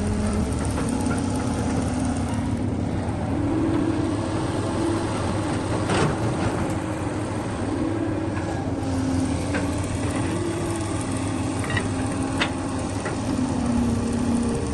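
Heavy machine's diesel engine running steadily, its pitch wavering up and down, with a few sharp metallic knocks, the loudest about six seconds in.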